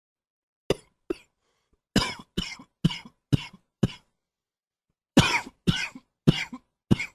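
A man coughing in fits: two coughs, then a quick run of five, then after a short pause another run of four. Each cough starts sharply and trails off quickly.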